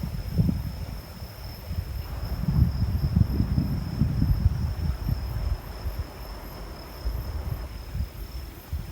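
Crickets or other insects trilling steadily on one high pitch, over a low, uneven rumble on the microphone that swells about two to four seconds in.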